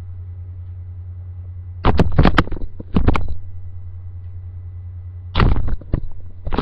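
Bumps and rustles of a stuffed toy being handled close to the microphone, in two short clusters about two seconds in and again after five seconds, over a steady low hum.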